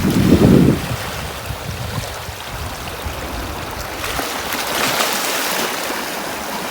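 Sea waves breaking and washing up a beach, an even hiss of surf. A low rumble of wind on the microphone fades in the first second, and a wave's hiss swells about four seconds in.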